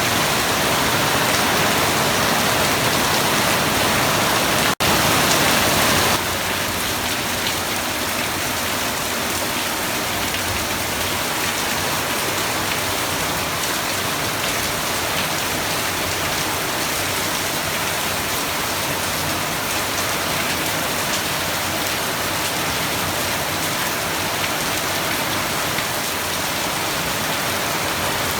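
Steady rain falling: a dense, even hiss of drops. A split-second gap comes about five seconds in, and the rain is a little softer after about six seconds.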